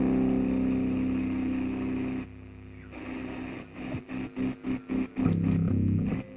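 A doom/sludge band's amplified electric guitar and bass holding a chord that cuts off about two seconds in; after a short lull, a stop-start riff of short, clipped chords with gaps between them begins, about two or three a second.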